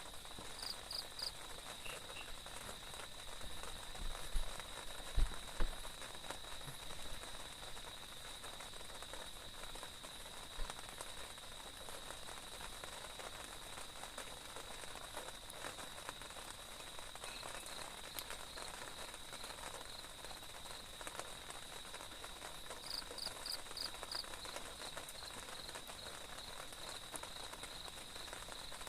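Forest night-time ambience: insects keep up a steady high drone, with short quick chirps in little groups and a run of evenly spaced pips in the second half. A few dull low knocks come about four to six seconds in.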